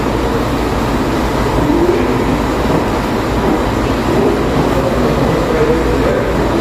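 Hospital ward ambience: a steady low rumble and hum with an indistinct murmur of voices in the background.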